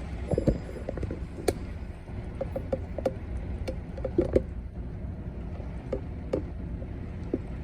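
Steady storm noise of rain and wind, with scattered sharp ticks and knocks throughout.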